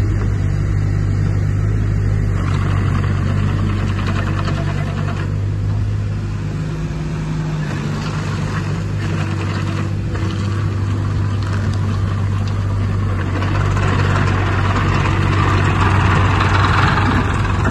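JCB 8026CTS mini excavator's diesel engine running steadily while the machine works its hydraulics and moves about. A mid-range mechanical hiss comes and goes over the engine and grows louder near the end as the machine comes close.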